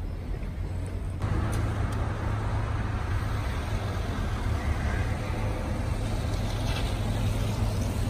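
Cars driving past at low speed on a street: engine and tyre noise over a steady low rumble. The sound becomes louder and fuller about a second in.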